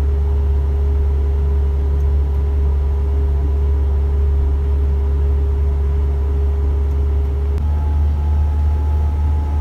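Isuzu FVR truck's diesel engine and road noise heard from inside the moving cab: a steady low drone with a faint steady hum above it, whose pitch jumps higher about three-quarters of the way through.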